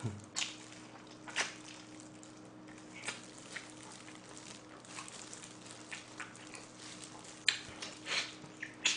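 Close-miked eating sounds: wet smacking and sucking clicks while gnawing braised pig's trotter (jokbal) meat held in the hands, a short smack every second or so with a few louder ones near the end.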